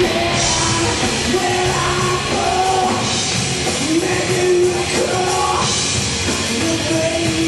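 Rock band playing live: electric guitars and a drum kit, with a singing voice that slides between notes over the band.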